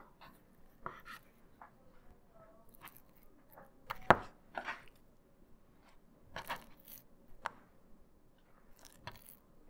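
Chef knife cutting raw chicken breast on a cutting board: irregular taps and knocks of the blade against the board, with soft handling of the meat between them and one sharp knock about four seconds in.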